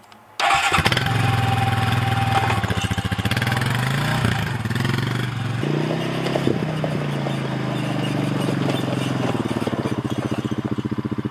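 Honda Rancher ATV's single-cylinder four-stroke engine running as the quad is ridden. It comes in suddenly about half a second in, its pitch rises and falls with the throttle in the middle, and then it holds steady.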